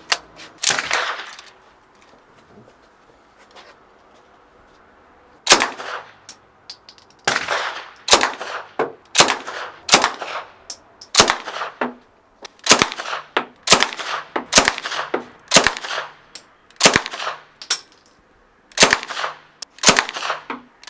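Suppressed 9mm Uzi fired semi-automatic, shot after shot about twice a second, each report sharp with a short metallic ring. It starts with two shots and a pause of a few seconds. The suppressor muffles the reports only partly, because the gun is firing normal supersonic rounds rather than subsonic ammunition.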